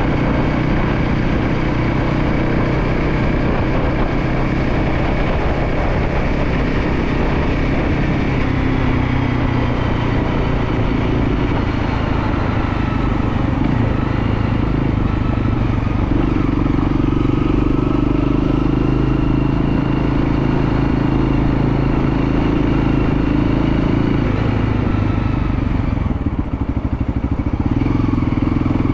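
Motorcycle engine running steadily under way, its note holding at a fairly even pitch. Near the end it briefly eases off, then picks up again.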